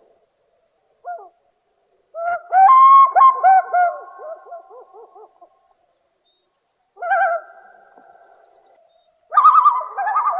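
Common loon calls. A short note about a second in is followed by a loud, wavering call that trails off. Around seven seconds there is a long, steady wail, and another wavering call starts near the end.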